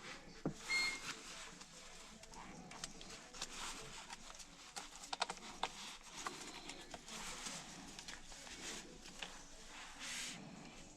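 Irregular light clicks, taps and rustling of parts and tools being handled during a steering wheel install.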